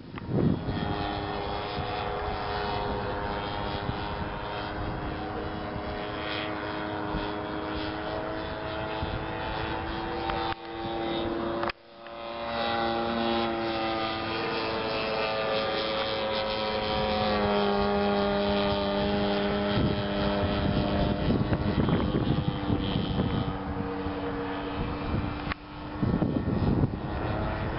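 DLE-55 single-cylinder two-stroke petrol engine of an MX2 RC aerobatic plane in flight, with propeller, its pitch stepping up and down several times as it flies. The owner judges the carburettor tune healthy. The sound dips briefly near the middle.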